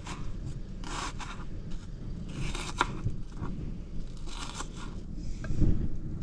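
Kitchen knife dicing a red onion on a plastic chopping board: irregular runs of crisp cuts, the blade tapping the board. A couple of dull knocks near the end.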